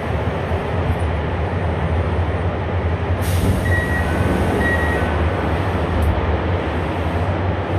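Running noise of a Toei 5300-series electric train: a steady low hum and rumble of the car on the track. About three seconds in comes a burst of hiss, followed by a few short high tones.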